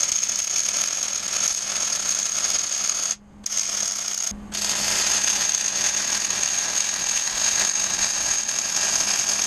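MIG welder arc crackling and hissing steadily as it lays beads on steel Unistrut channel. The arc breaks off briefly twice, about three and four seconds in. A low steady hum continues underneath.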